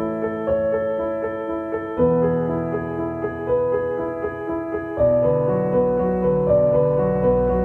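Background music on piano, with sustained chords over a repeating higher note. The chords change about two seconds in and again about five seconds in.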